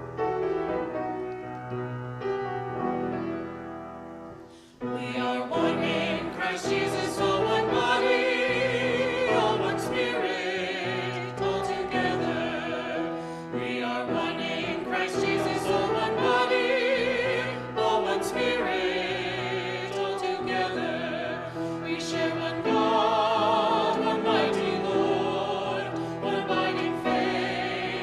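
Piano notes dying away, then about five seconds in a choir comes in singing with strong vibrato over accompaniment, and carries on to the end.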